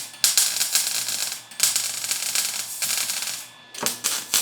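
MIG welder arc crackling as beads are run along the seams between steel tiles and a mild-steel jacket, sealing them against oxygen. It comes in several runs of roughly a second each, with brief breaks as the weld stops and restarts.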